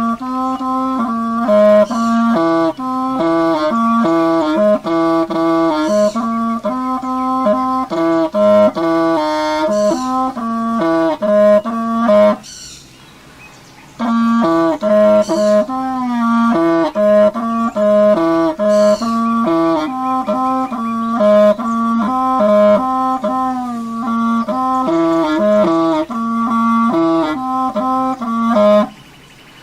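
Music: a wind instrument playing a melody in short notes, with a pause about twelve seconds in and another near the end.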